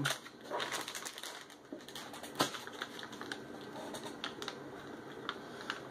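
Sealed ready-to-eat sandwich pouch crinkling and crackling as it is handled in the hands, a string of small irregular clicks with one sharper snap a little over two seconds in.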